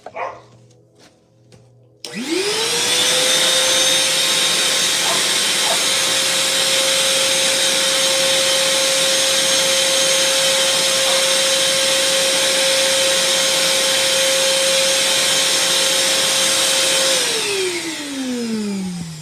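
Vacuum cleaner switched on about two seconds in, its motor whining up to speed and then running loudly and steadily. It is switched off near the end, the whine falling as the motor winds down.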